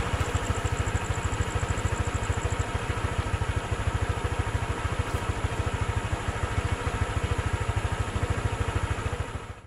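Motorcycle engine idling steadily, a fast even low pulse with no revving.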